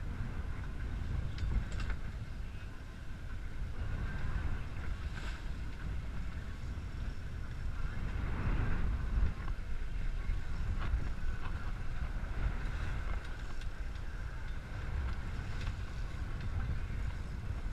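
Wind buffeting the microphone aboard a small fishing boat at sea, a steady low rumble with a faint steady high hum over it.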